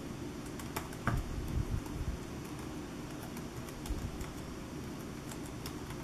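Keystrokes on the OneGx1 mini laptop's small keyboard during two-finger typing: irregular, scattered key clicks.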